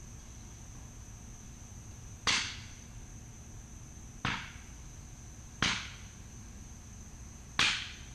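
Four sharp thuds of arrows striking a bag archery target, about one and a half to two seconds apart, each fading quickly. The first and last are the loudest.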